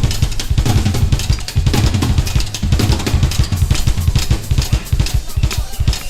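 Music led by a drum kit played fast and busy, with rapid bass-drum and snare hits over a low bass line.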